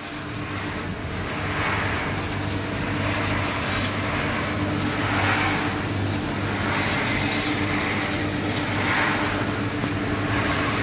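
Rotating-drum chana roaster running, a steady motor hum under the rattle and hiss of roasted chickpeas tumbling in the drum and pouring out through the mesh chute. The rattle swells and fades every couple of seconds.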